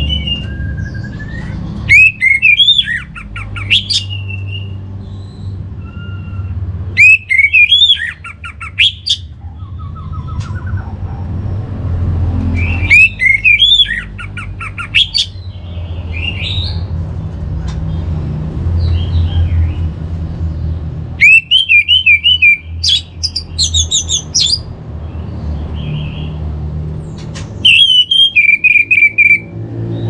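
Orange-headed thrush singing: five loud phrases of quick rising and falling whistles and trills, about every five seconds, with softer chirps between them, over a steady low hum.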